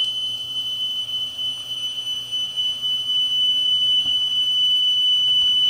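A 3 kHz test tone played from a tape on a Pioneer CT-F500 cassette deck fitted with a new drive belt: one steady high-pitched tone, listened to for wow and flutter from the tape drive.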